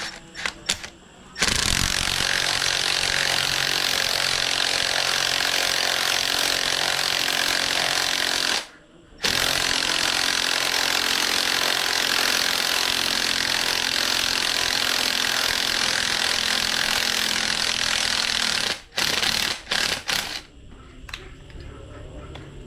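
A power tool running hard in two long bursts of several seconds each, separated by a short pause, then a few brief bursts near the end, during the disassembly of an engine.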